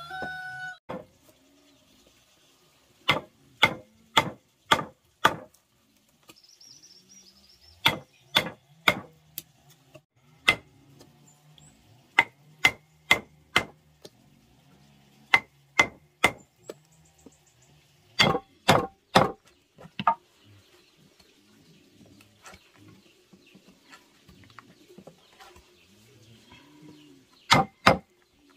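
Wooden mallet striking a steel chisel to cut a mortise in a wooden plank: sharp knocks in bursts of three to five strikes about two a second, with pauses between bursts.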